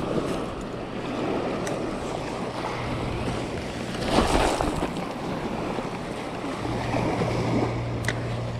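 Small waves washing onto a beach, one wave surging louder about four seconds in. A faint click near the end.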